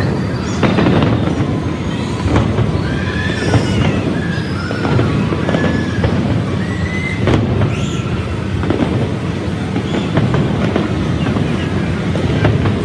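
Fireworks display going off: a steady low rumble of explosions with sharp bangs every second or two, and short high-pitched whistles in between.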